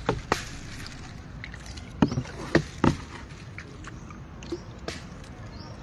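A small boat pushed through shallow floodwater with a broom handle used as a paddle: water swishing and splashing as the pole strokes. A few sharp knocks come through, clustered about two to three seconds in.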